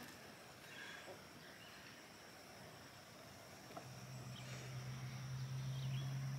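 Quiet garden ambience: a steady high insect buzz with a few short, faint bird chirps. About four seconds in, a low steady hum like a distant motor begins and grows a little louder.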